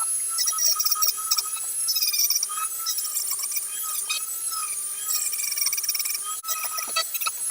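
Small high-speed rotary tool with a sanding bit running and sanding down a wooden hammer handle, its whine dipping and rising slightly as it bears on the wood, with scratchy grinding of the abrasive on the wood.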